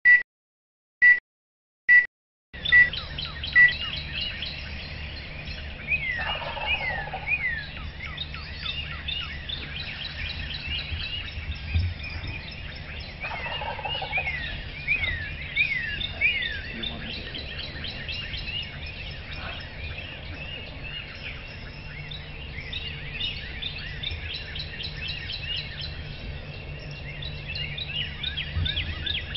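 A wild turkey gobbler gobbles twice, a rattling call heard about six seconds in and again about thirteen seconds in, over a chorus of songbirds chirping. A row of short, even high beeps opens it.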